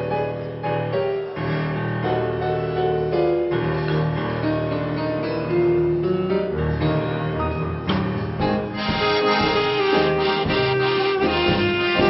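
Small dance band playing a tango, an accordion carrying the melody over piano. About eight seconds in, the rest of the band comes in and the sound gets fuller.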